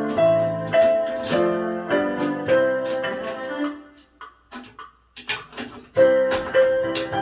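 Electronic keyboard played as a simple melody of held notes. The playing breaks off for about a second, with a few clicks, about four seconds in, then resumes.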